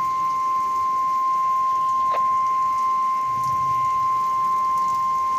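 NOAA Weather Radio's 1050 Hz warning alarm tone: one loud, steady, unbroken high tone that announces a new tornado warning. A single short click sounds a little after two seconds.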